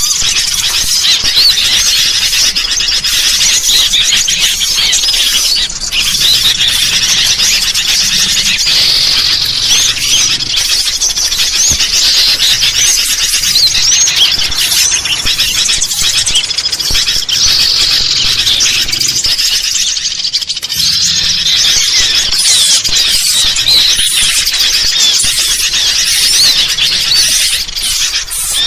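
Dense, unbroken chorus of noisy sooty-headed bulbuls mixed with small birds, many high chirps and squeaky calls overlapping. This is a bird-lure recording for drawing in small birds and bulbuls.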